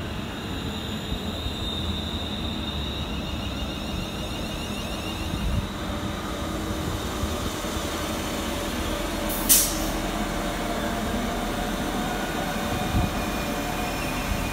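London Northwestern Railway Class 350 Desiro electric multiple unit pulling out of the station, with a steady rumble of wheels on the rails and a faint electric whine that rises slowly as it gathers speed. A single sharp click comes about two-thirds of the way through.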